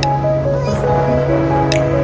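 Background music: a melodic tune in short steady notes over a held bass tone, with a bright percussive hit about every second and a half.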